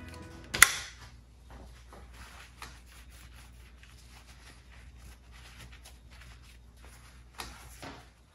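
Handling noises from gloved hands working on a motorcycle: a single sharp click about half a second in, then light rustling and small clicks, with two louder knocks near the end.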